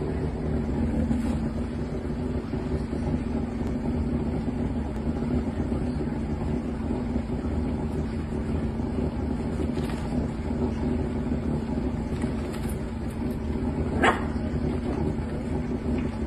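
Steady low machine hum, even and unchanging, with one short sharp sound near the end.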